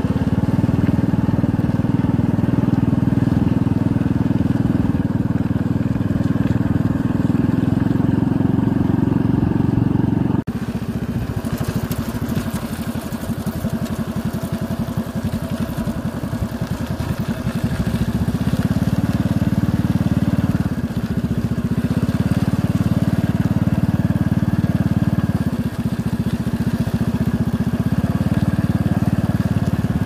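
Motorcycle engine running steadily while riding along a dirt track. About ten seconds in, the sound breaks off abruptly and comes back rougher and noisier, and the engine note rises and drops a few times after that.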